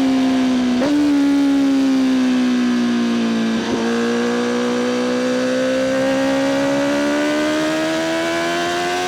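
Honda CBR1000RR-R SP's inline-four engine running through an Akrapovic exhaust under load, its note dipping a little and then climbing slowly and steadily as revs build. There are two brief breaks in the note, about a second in and near four seconds in.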